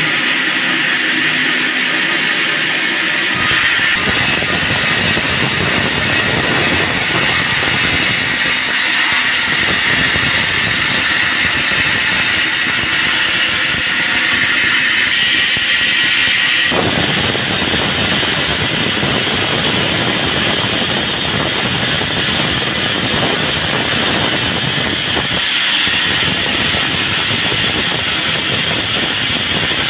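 Band sawmill running and cutting through a log, a steady loud rushing machine noise. Its character changes abruptly about three seconds in and again about halfway through.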